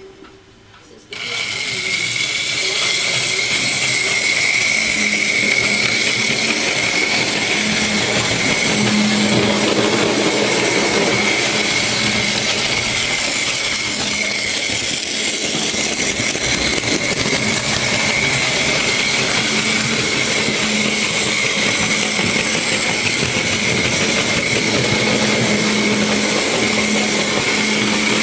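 Märklin model train's small electric motor running steadily with a high-pitched whine and a low hum over a hiss, starting abruptly about a second in.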